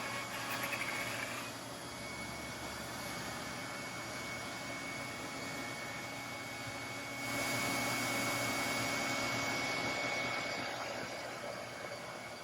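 Onefinity CNC router's spindle running with a steady high whine while it cuts wood. The cutting noise grows louder about seven seconds in, then eases off near the end.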